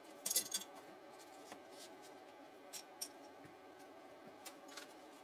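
A short crackle of the instruction booklet's paper page about half a second in, then a few light scattered clicks of plastic LEGO Technic pieces being picked from a loose pile.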